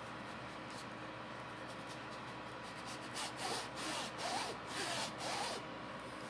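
Flat bristle brush rubbing oil paint onto stretched fabric in a run of about six quick back-and-forth strokes, starting about halfway through, over a steady faint hum.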